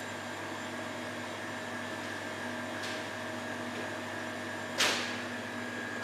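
A steady machine hum with several steady tones, like a ventilation fan or air conditioner running, with a faint tick about halfway and one sharp knock about three-quarters of the way through.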